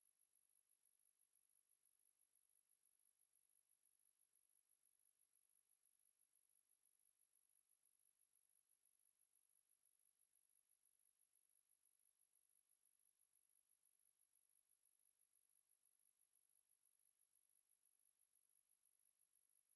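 A steady, high-pitched pure sine tone at 11293 Hz, held unchanged, a test tone for checking speakers and headphones and for shaking water and dust out of a speaker.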